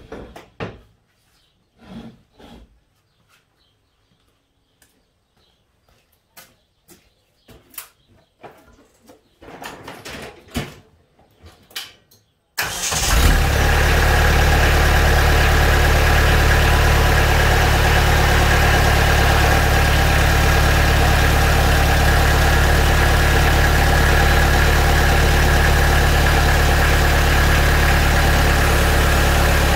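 Scattered knocks and clunks, then, a little before halfway, a Kubota B3150 compact tractor's three-cylinder diesel engine starts and runs steadily at idle.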